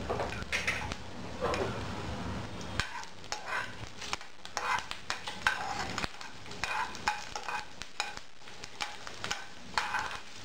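Chana dal and garlic cloves frying in a little oil in a pan, sizzling, while a spoon stirs them and scrapes against the pan in many short strokes.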